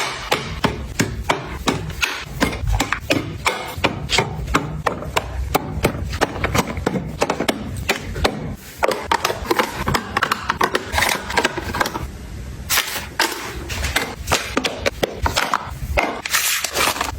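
Quick, regular knocking on wood, about three or four knocks a second, easing into a looser stretch a little past the middle before the fast knocking picks up again.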